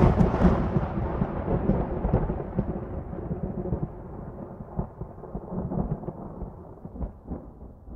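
A thunder-like rumble sound effect for a logo intro, loud at the start and fading slowly, with scattered crackles along the way.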